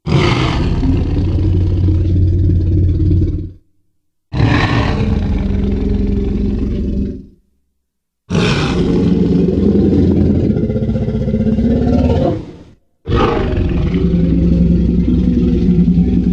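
Tyrannosaurus rex roar sound effects: four long, deep roars in a row, each several seconds long, starting suddenly and fading out, with short silences between them.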